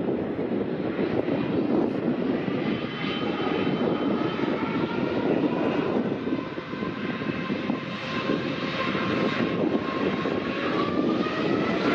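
Wide-body jet airliner engines running: a loud, steady rush with thin whining tones above it that climb slowly in pitch near the end.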